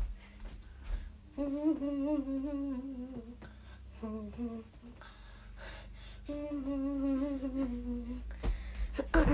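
A girl humming a wavering tune in two long phrases with a short one between, and a few soft thumps at the start and a louder cluster near the end.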